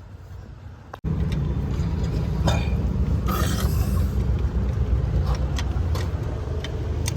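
Car engine running steadily, a low rumble starting abruptly about a second in, with a few sharp clicks over it.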